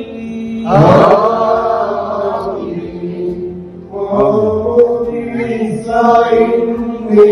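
Liturgical chanting, a sung recitation with long held notes, during the baptism rite.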